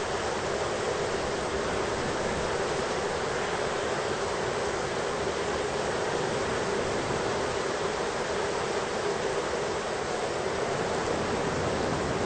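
Steady, even rush of heavy rain from a thunderstorm ambience, with no thunder in this stretch.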